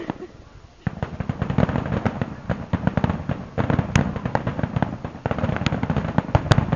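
Fireworks going off in a dense, continuous crackle of rapid pops and bangs, starting about a second in, with a few sharper cracks standing out.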